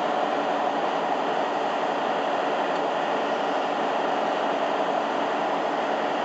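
DB Class 218 diesel-hydraulic locomotive's V12 engine running steadily under load as the locomotive pulls slowly away.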